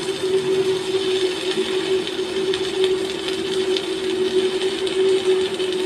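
Arc welding test: the electrode arc crackles and sizzles, with many short sharp pops, over a steady hum from the welding machine.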